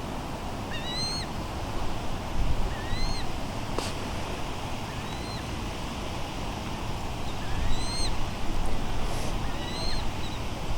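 A bird calling over and over, a short arched chirp about once a second, over a steady low rumble.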